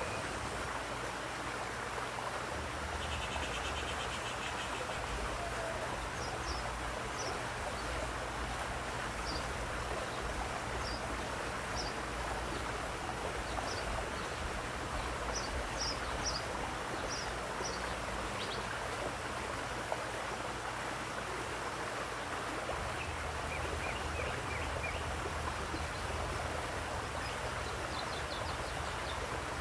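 Steady rush of running water with birds singing over it: short high chirps scattered through the middle, a buzzy trill a few seconds in and another near the end.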